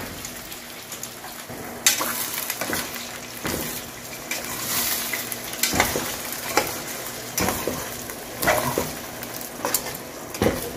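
Eggs frying in hot oil in a metal pot, a steady sizzle, while they are stirred. A utensil knocks and scrapes against the pot's metal side at irregular intervals, roughly once a second.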